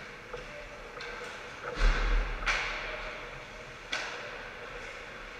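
Ice hockey game in an indoor rink: a heavy thud about two seconds in, then sharp clacks of stick or puck about half a second later and again near four seconds, each echoing briefly, over steady arena noise.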